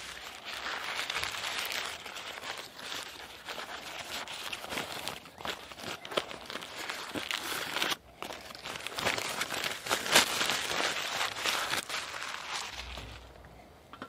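Crinkly packaging being handled and unwrapped close up: dense crackling rustles with many small clicks, breaking off briefly partway through and fading near the end.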